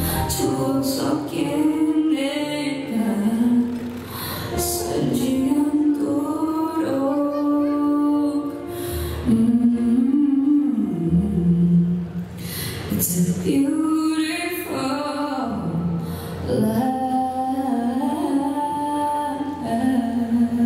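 Music with a woman singing a slow melody, holding long notes.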